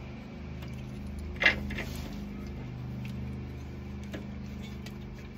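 Metal parts of a sway bar link end clicking as it is fitted through the control arm: one sharp click about a second and a half in, a smaller one right after and a faint tick later, over the steady low drone of a lawn mower engine running.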